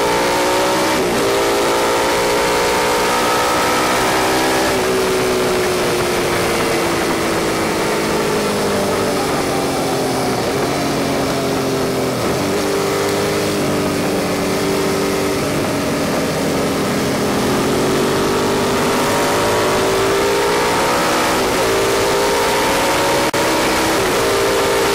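Suzuki SV650's V-twin engine running hard on a track lap, its pitch rising and falling with the throttle and stepping down at each gear change, over heavy wind rush past the bike.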